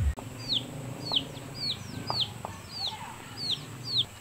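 A bird repeating short, high peeps, each falling in pitch, about two a second.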